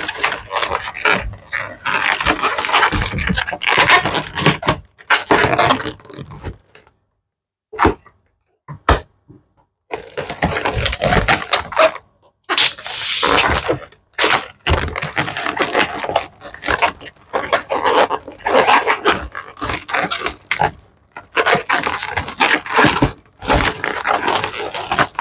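Inflated latex twisting balloons squeaking and rubbing against one another in irregular bursts as they are handled and twisted. There is a sharp pop about fourteen seconds in, as a leftover balloon end is burst.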